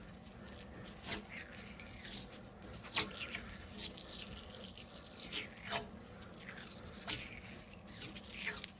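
Hockey tape being pulled off the roll and wrapped onto the stick: a series of short, irregular rasping rips, about one or two a second.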